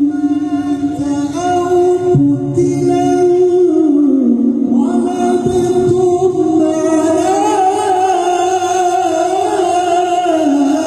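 Male qari reciting the Quran in a melodic, sung style, drawing out long ornamented notes; his voice glides up to a higher held note about five seconds in and comes down near the end.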